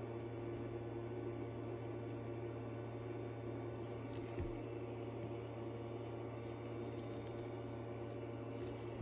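Steady low background hum, with a single faint tap about halfway through.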